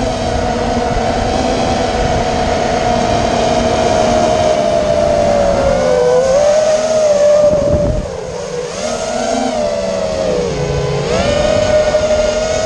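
FPV racing quadcopter's brushless motors whining, the pitch sliding up and down with the throttle, over a rough rumble. The pitch sags about six, eight and eleven seconds in, with a brief deeper rumble around eight seconds.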